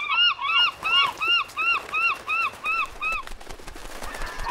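Seagulls squawking: a rapid, even run of short rising-and-falling calls, about four a second. About three seconds in they give way to fainter clicking, and the squawks start again near the end.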